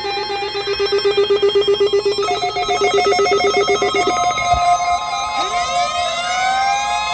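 NOAA Weather Radio weekly test alert signal: electronic alarm tones pulsing rapidly. The tones step up in pitch about two seconds in, and a rising sweep comes about five seconds in.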